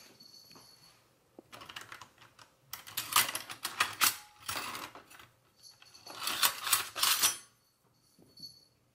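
Metal cutlery and kitchen utensils clattering and rattling in the utensil holder of a wire dish rack as a hand rummages through it and pulls out a large spoon. The rattling comes in three spells, the second and third the loudest.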